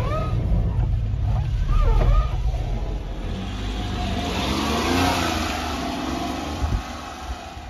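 A motor vehicle's engine and road noise swell to a peak about five seconds in, then fade, over a heavy low rumble that is strongest in the first two seconds.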